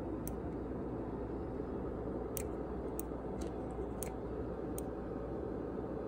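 Steady low hum with faint, sharp clicks about every second, from a handheld infrared thermometer being handled and aimed.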